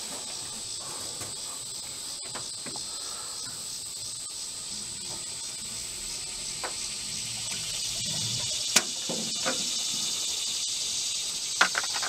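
Insects droning steadily at a high pitch, with a few short sharp clicks near the end.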